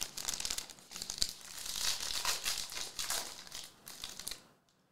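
Foil trading-card pack wrapper being crinkled and torn open by hand: a dense crackling that stops shortly before the end.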